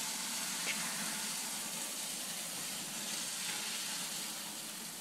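Steady hiss of a jet of water spraying from a Water Saber cleaning wand into a small residential boiler, washing out soot and carbon deposits.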